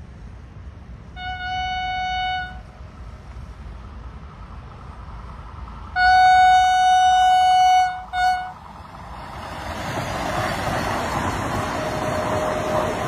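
Vande Bharat Express electric train sounding its horn on one steady tone: a blast of over a second, a longer blast of about two seconds some six seconds in, and a quick short toot right after it. Then the rushing noise of the train passing at speed builds up and holds.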